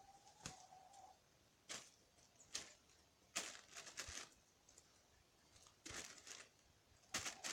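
Chickens pecking and tearing at a soft spaghetti squash: faint, irregular sharp pecks and short crackly scrapes, with a brief steady tone near the start and again near the end.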